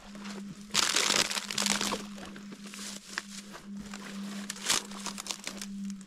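A hiker's footsteps and rustling on a forest trail: irregular crunching and brushing, loudest about a second in, with a sharp crackle later on. A steady low hum runs underneath.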